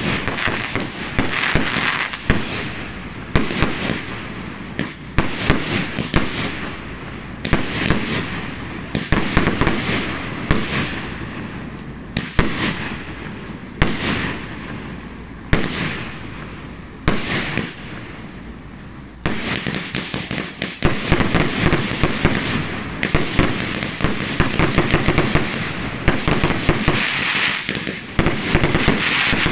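Fireworks going off in quick succession: repeated sharp bangs of bursting aerial shells with crackle between them. After a brief lull about two-thirds of the way in, the bangs and crackling come thick and almost without a break.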